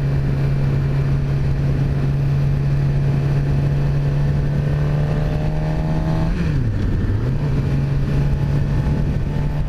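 Suzuki GSX-R600 inline-four engine running at a steady cruising pitch under way, over a dense low rumble. A little past halfway the engine note dips and then climbs back up over about a second.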